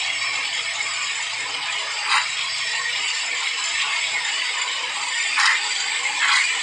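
Electric blender running at speed, churning thick cream into butter: a steady whirr with a few louder rattling clatters, one about two seconds in and two near the end.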